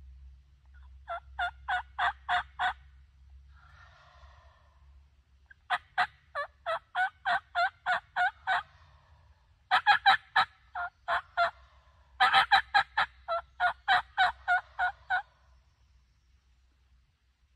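Hen turkey yelps in four runs of short, evenly spaced notes at about four a second, loud and close. A fainter, hazier sound lasting about a second comes between the first two runs.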